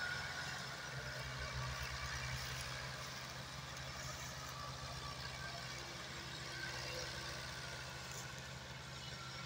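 Diesel engine of a Massey Ferguson 385 tractor running steadily as it hauls a trolley heavily loaded with sugarcane, with a low pulsing beat for the first few seconds.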